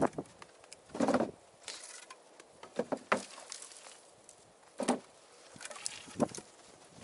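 Lengths of cut branch wood knocking and clattering against each other and a plastic sled as they are picked up and loaded, in irregular bursts a second or two apart, the loudest about a second in.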